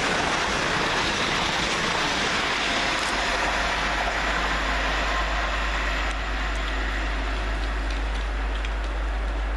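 Two coupled Class 350 Desiro electric multiple units running along the line: a steady rush of wheel and rail noise that eases a little toward the end, with a low hum underneath from about four seconds in.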